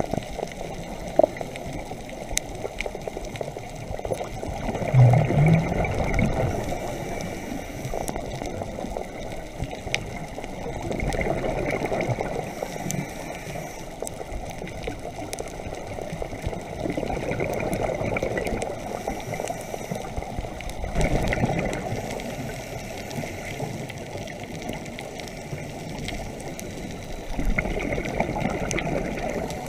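Underwater sound of a scuba diver breathing through a regulator: exhaled bubbles burble out in swells about every five to six seconds over a steady watery murmur, with a few faint clicks.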